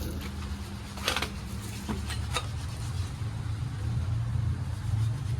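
An engine or motor running steadily with a low hum that shifts slightly in pitch about halfway through, with a few sharp metallic knocks near the start.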